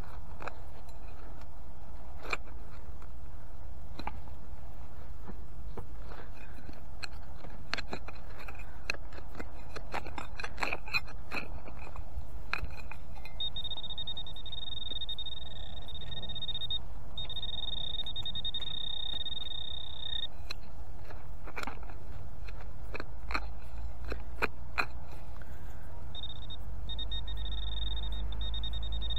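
Scraping, crunching and clicking, typical of dry soil being handled and dug, with a high steady tone in three stretches of about three seconds each, starting near the middle and again near the end.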